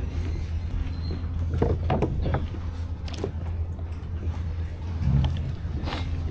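Steady low rumble on a kayak-mounted microphone, with water moving around the fishing kayak's hull and a few light knocks, about 2, 3 and 6 seconds in.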